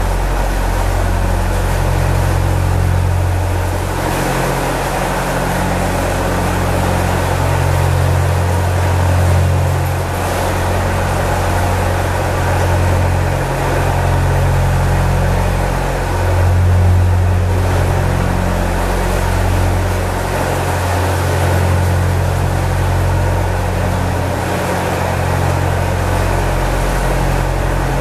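Narrowboat's inboard engine running steadily, a low hum with a constant rhythmic drone, heard from on board inside a narrow rock-hewn canal tunnel.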